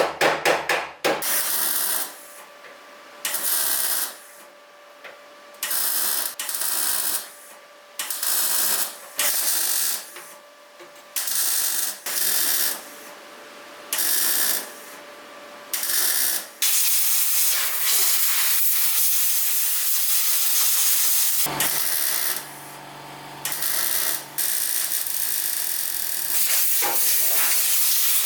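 Compressed air hissing from an air tool in a series of short bursts, each half a second to a second long, then a long continuous hiss over the last third. A few quick taps come right at the start.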